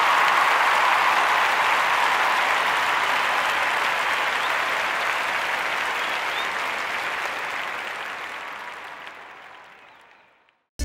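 Crowd applauding, a dense steady clatter of many hands that fades away gradually over the second half.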